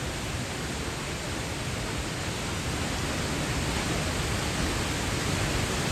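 Cheonjiyeon Waterfall's water falling into its pool, a steady rushing noise that grows slightly louder.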